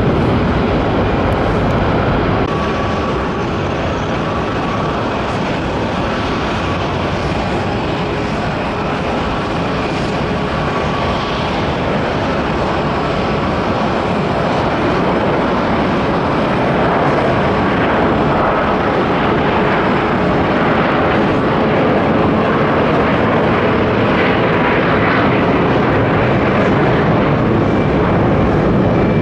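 Gulfstream G650ER business jet on its takeoff run, its twin Rolls-Royce BR725 turbofans at takeoff power: a steady jet rush that grows slightly louder in the second half.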